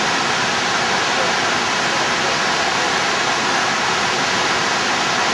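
Niagara Falls' water pouring down and crashing into the churning river below: a loud, steady rush with no breaks.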